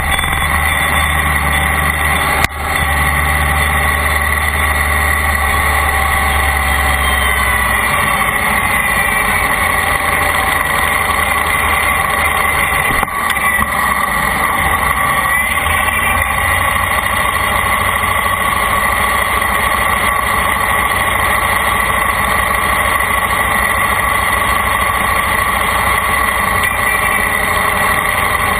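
Steady vehicle engine and road noise from a moving vehicle, with a deep rumble that eases about eight seconds in and a couple of brief knocks.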